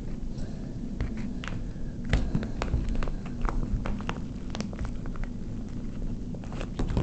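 Scattered small clicks and taps of a fingerboard and its parts being handled, over a steady low hum.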